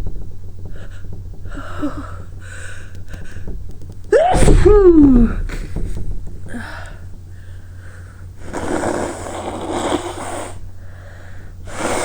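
A woman's sneeze induced by lemon balm in her nose: several short breaths in the first few seconds, then one loud voiced sneeze about four seconds in, its pitch falling. Around nine seconds in comes a rough breathy rush of air lasting about two seconds, over a low steady hum.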